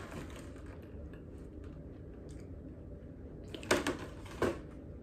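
Cardboard Kisses holiday countdown box handled and turned over, with soft rustles and two brief knocks of the box about three and three-quarter and four and a half seconds in.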